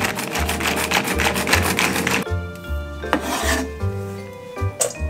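Pull-cord manual food chopper being yanked repeatedly, its spinning blades making fast rasping strokes, about seven a second, that stop suddenly about two seconds in. After that, background music with a bass line and a couple of light clicks.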